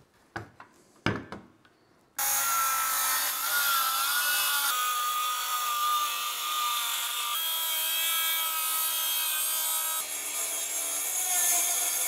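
A few faint handling knocks, then about two seconds in a cordless circular saw starts abruptly and cuts steadily through a plywood sheet, a high whine from the blade over the loud cutting noise.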